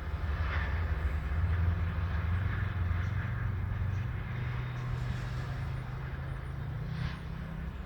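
Empty coal train rolling past, a steady low rumble of wheels on rail, with a faint low engine hum that rises slightly about midway.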